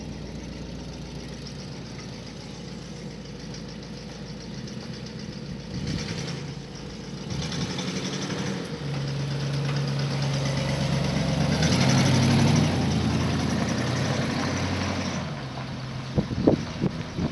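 1960 Cadillac Series 75 limousine's 390 V8 running as the car drives slowly across grass. The engine note rises and gets louder about halfway through, then eases off. Wind buffets the microphone near the end.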